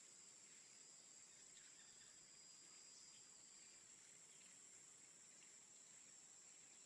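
Near silence: a faint hiss with a thin, steady high-pitched tone.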